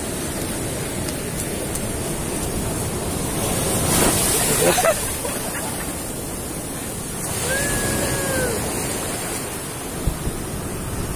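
Ocean surf washing ashore in a steady rush, swelling louder about four seconds in and again around eight seconds as waves break.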